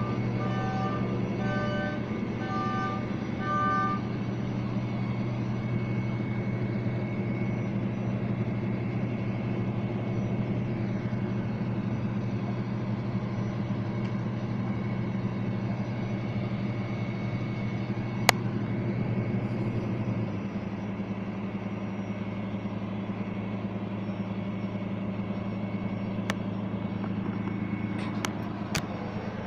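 Heavy truck engine idling steadily with a low hum, which changes about two-thirds of the way through as one part of it drops away. A reversing beeper pulses about twice a second for the first few seconds. There is a single sharp click about 18 seconds in and a few more clicks near the end.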